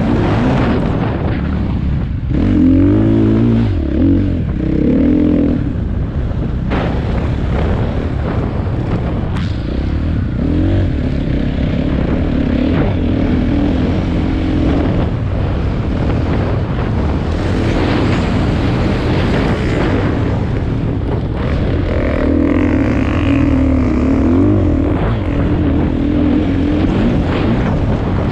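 Motocross bike engine revving up and down as the throttle opens and closes, over a steady rush of wind and track noise.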